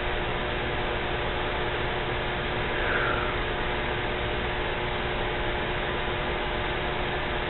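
Steady hiss with a faint constant hum, like a fan or room noise, and a brief slightly louder sound about three seconds in.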